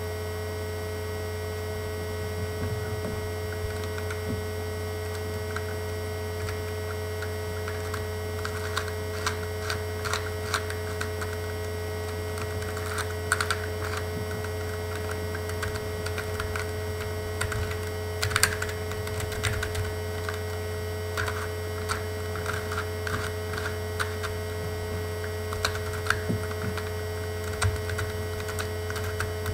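Irregular clicking and clacking of a hand-made mini dino cube's resin-cast plastic pieces as its corners are twisted, starting a couple of seconds in. A loud steady electrical hum underlies it throughout.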